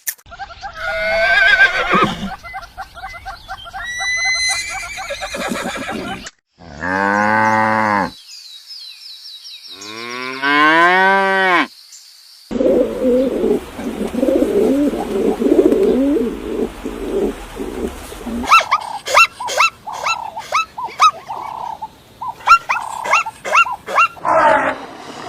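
A run of different farm animal calls one after another, among them two long cattle moos in the first half. These are followed by several seconds of low grunting and then a quick series of short, sharp calls.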